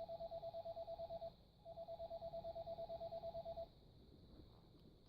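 VTech Tiny Touch Phone toy playing its electronic telephone-ring sound effect: a fast warbling trill tone in two rings of about two seconds each, with a short pause between them, stopping a little under four seconds in.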